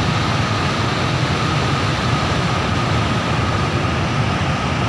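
Floodwater rushing through the open sluice gates of a small masonry dam and churning in the river below: a loud, steady, unbroken rush.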